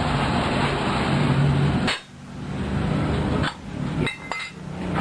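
A machine running with a noisy rush and a low hum, stopping abruptly about two seconds in, building back up, and dipping again near the middle.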